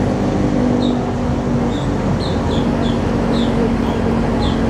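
Engine running steadily under a constant rushing noise, with a string of short, falling high chirps from a small bird over it.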